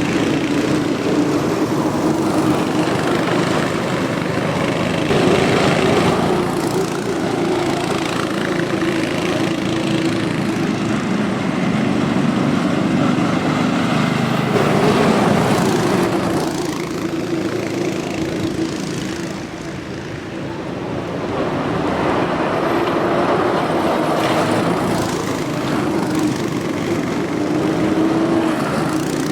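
Small cyclekart engines running as the karts lap a small track, the engine note rising and falling as they come and go, briefly quieter about twenty seconds in.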